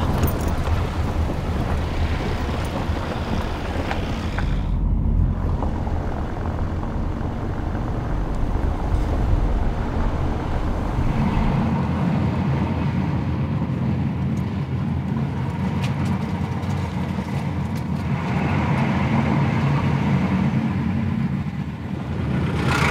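A car driving, with steady engine and road rumble heard from inside; the engine note shifts about halfway through.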